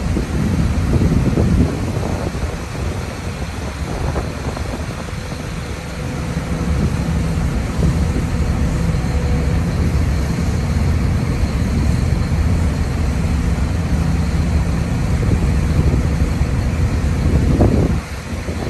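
Kobelco SK210 LC excavator's diesel engine running steadily, getting louder about six seconds in.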